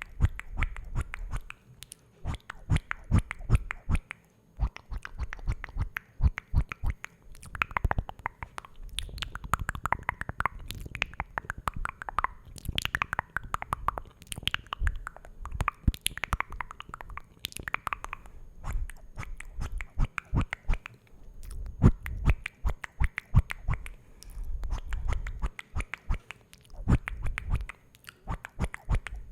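ASMR mouth sounds close to the microphone: rapid wet clicks and smacks, with patches of soft low thumps.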